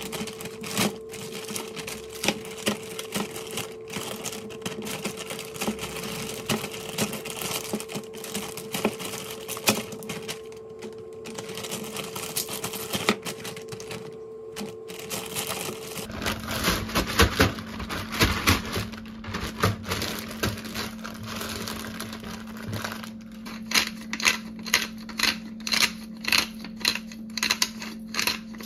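A knife chopping on a cutting board: long runs of quick, sharp taps, turning near the end into evenly spaced chops about two or three a second, over a faint steady hum.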